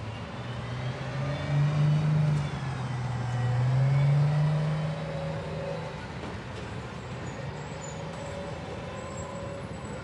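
Close-up city street traffic. A low vehicle engine hum swells loud between about one and six seconds in, peaking twice, then settles back into the steady rush of traffic.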